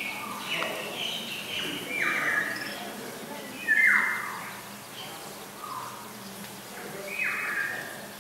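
Lesser whistling ducks and their ducklings calling: a run of short, high whistled notes, several stepping or sliding down in pitch, the loudest about four seconds in.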